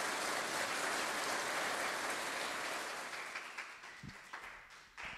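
Applause from a small audience, dying away over about four seconds, with a few faint knocks near the end.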